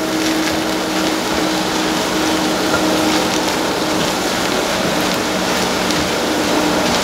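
Fried rice sizzling in a large frying pan, a steady hiss, with a few light clicks of the spoon as it is stirred and a steady hum underneath.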